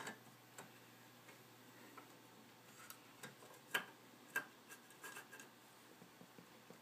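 Faint, irregular light ticks and taps, the sharpest a little under four seconds in and another just after four seconds.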